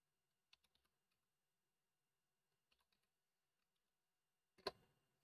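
Faint computer keyboard keystrokes: a short run of quick clicks, a few more about three seconds in, and one louder key press near the end.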